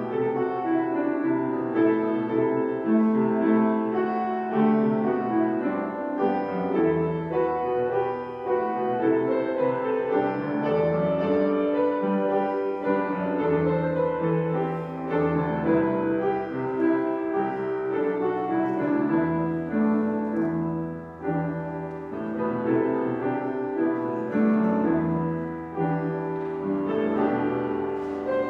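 Slow instrumental keyboard music, a prelude of sustained chords that change about once a second.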